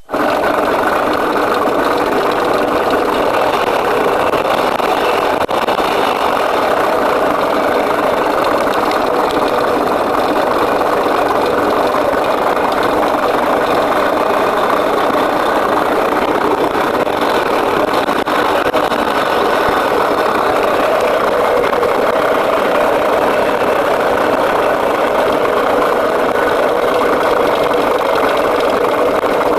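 Zündapp engine running steadily at idle with a rattle.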